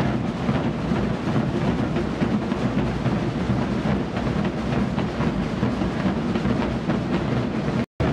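Massed Zé Pereira drumming: many large bass drums (bombos) and snare drums played together in a dense, continuous rolling thump and rattle, with crowd din mixed in. The sound cuts out for an instant near the end.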